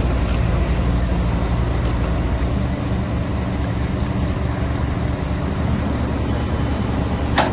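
Doosan 225LC-V crawler excavator's diesel engine running steadily, with a sharp click near the end.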